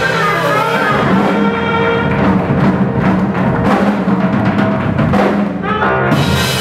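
Live swing band playing with saxophone, double bass, keyboards and drums, with sustained horn-like notes over busy drumming in the middle. These are the closing bars of the song, just before applause.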